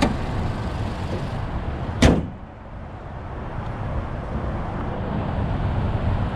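The hood of a 2012 Toyota Corolla S is slammed shut once about two seconds in, a sharp loud bang over the steady hum of its idling four-cylinder engine. After the slam the engine sound is muffled under the closed hood.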